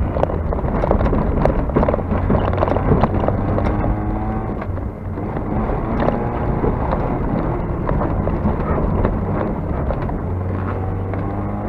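Race car engine heard from inside the cabin at speed on a rough dirt course, its pitch climbing in pulls about three seconds in and again near the end. Frequent sharp clicks and rattles from gravel and bumps run underneath.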